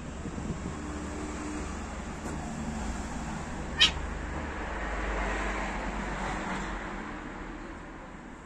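Cats facing off, with faint low growling early on. Street traffic noise swells and fades as a vehicle passes. One sharp click about four seconds in is the loudest moment.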